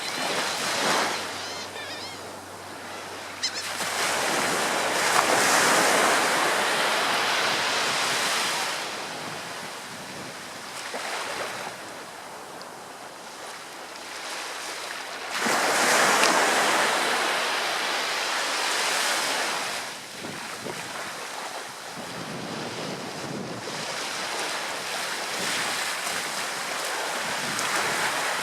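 Ocean surf breaking on a shore in rising and falling surges: a big wave crashes a few seconds in and washes for several seconds, and another crashes about halfway through, with smaller breakers between.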